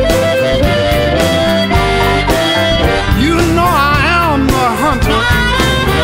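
Blues band instrumental break with harmonica lead over guitar, bass and drums. Long held notes give way to quick bent, wavering notes in the middle.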